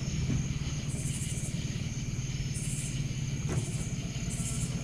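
Boat motor running low and steady at idle, with an insect calling in short high buzzes about every second.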